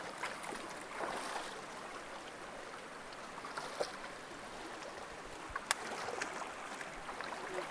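Shallow rocky stream rushing over stones, with water sloshing around a person's legs as they wade knee-deep through it. A single sharp click about two-thirds of the way in.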